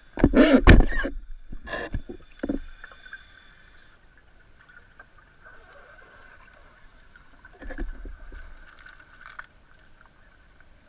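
Muffled audio from a camera in an underwater housing: heavy knocks and scrapes in the first two and a half seconds as a shark bumps and mouths the housing, then a faint steady hiss with another brief cluster of knocks and rumble about eight seconds in.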